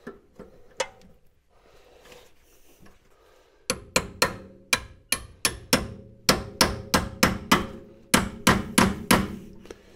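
Hammer blows on the steel bolt of an MGB's front suspension, driving the freshly greased bolt through the upper arm and its new polyurethane bushes. A run of about twenty quick metallic strikes, three to four a second, starts about four seconds in, and each strike rings briefly.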